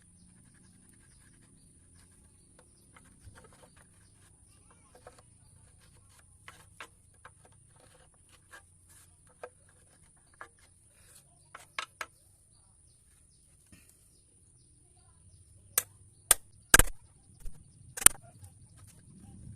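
Scattered light taps and clicks of tools being handled on wood. Near the end come a few loud, sharp knocks in quick succession.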